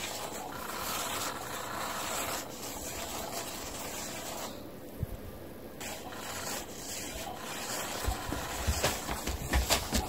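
Battery-powered 'Catch Me If You Can' cat toy running, its motor-driven wand scraping around under the fabric cover. From about eight seconds in, dull thumps as the cat pounces on the cover.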